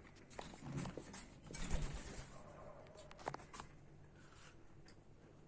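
A pet parrot eating at its food bowl: scattered light clicks and taps of its beak, with a few soft low bird sounds in the first two seconds.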